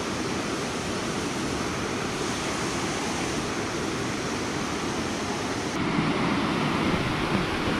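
Steady rush of river water flowing past rocks. About six seconds in it cuts to a louder, fuller rush of water close to the water's edge.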